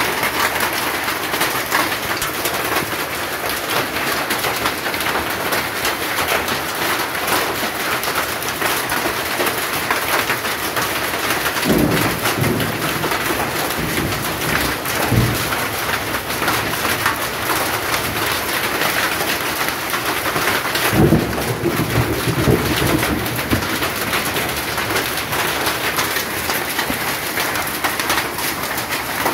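Heavy rain mixed with hail falling steadily, a dense patter of many small hits. Two deeper low rumbles come through about twelve and twenty-one seconds in.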